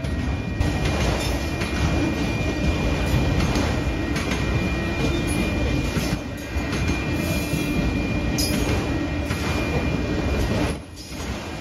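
Full autorack freight cars rolling past close by: a steady rumble of steel wheels on rail with irregular knocks as the wheels cross rail joints, and a faint steady high tone above it. The sound drops briefly near the end.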